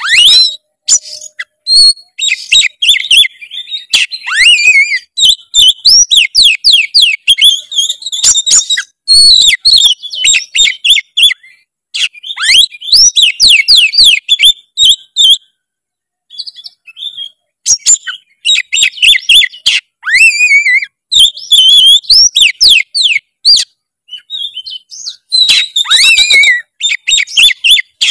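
Oriental magpie-robin (kacer) singing in full, vigorous song: rapid, varied strings of whistles, trills and chirps in loud bursts, with a couple of brief pauses.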